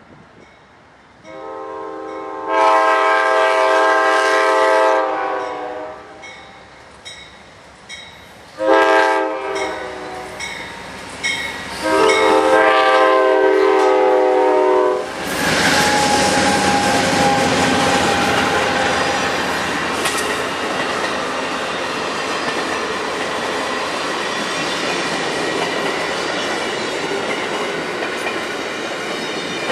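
Amtrak train led by GE Genesis P42DC diesel locomotives sounding its horn on the approach to a grade crossing: a long blast, a short one, then another long one. About halfway through, the locomotives pass close by, and the diesel engines and the clatter of the wheels on the rails carry on as the passenger cars go by.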